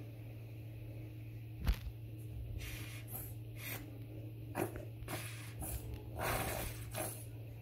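A hand-squeezed tube of tile grout spurting and sputtering from its nozzle as paste and trapped air are pressed into a tile joint, in a string of short hissing bursts with the longest near the end. There is a sharp click a little under two seconds in.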